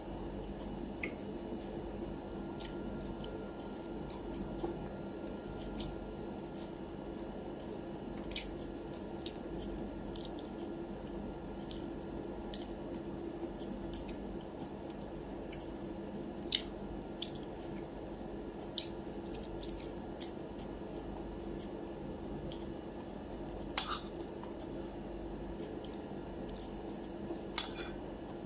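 Close-up eating sounds of a person chewing roast chicken: soft wet squishing and scattered small mouth clicks, with a few sharper clicks toward the end, over a steady low hum.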